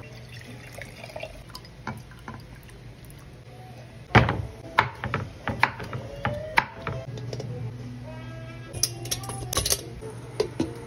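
Kitchen knife cutting through kalabasa squash and knocking on a wooden chopping board. About a dozen sharp strokes start about four seconds in. Near the end come a few sharper clicks as squash pieces are set into a stainless steel steamer basket.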